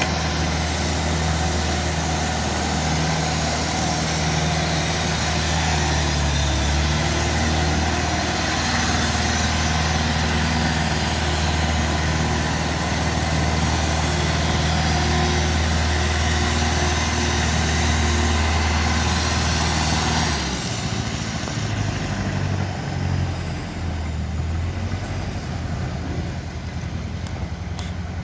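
Tractor engine running steadily while it pushes an ice-resurfacing unit across the rink. About twenty seconds in the steady hum and a faint high whine cut off, and the engine sound becomes lower and uneven.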